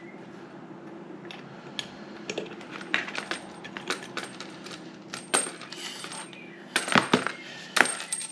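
Metal parts of a chrome kitchen mixer tap clinking and clicking together as the threaded fixing bar is fitted into the tap body and the tap is handled, in many short irregular clicks with a few louder ones near the end.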